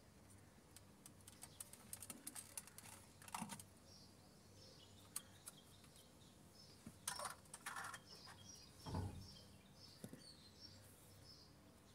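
Faint scattered clicks and rattles of the plastic centre-console trim of a 2011 Toyota RAV4 being unclipped and handled, with a dull thump about nine seconds in. Small birds chirp faintly in the background.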